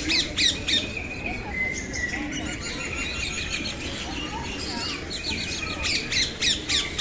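A flock of captive birds calling: a quick run of sharp, harsh squawks at the start and another run of them near the end, over steady high chirping and chatter.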